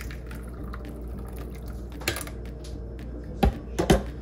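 Thick blended butternut squash soup pouring from a Ninja blender's plastic pitcher into a ceramic bowl, with a few light knocks and clicks, the loudest two close together near the end, over a steady low hum.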